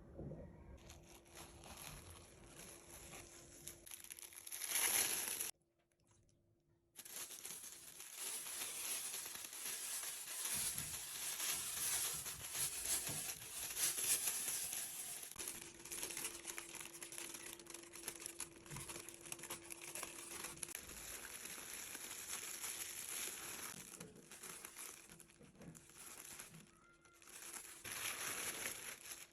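Plastic oven bag crinkling as it is handled, a dense crackle that drops out for about a second and a half near six seconds in.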